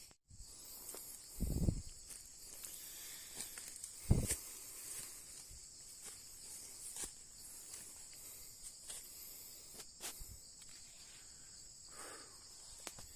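Steady high-pitched chirring of insects in the background, broken by a dull thump about a second and a half in and a sharper, louder knock about four seconds in.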